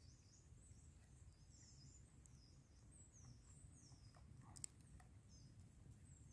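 Near silence, with faint, high chirps from a small bird repeating throughout and a single sharp click about four and a half seconds in.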